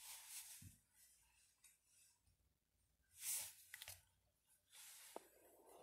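Near silence: quiet room tone with a few faint, brief rustles of handling.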